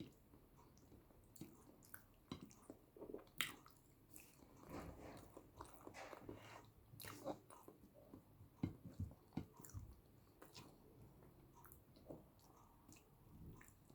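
Close-miked chewing and biting of boiled yam in eggplant sauce: soft, wet mouth sounds with irregular small clicks, busiest in the middle.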